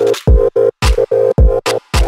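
Electronic background music: a heavy kick drum under a chopped, stop-start synth chord.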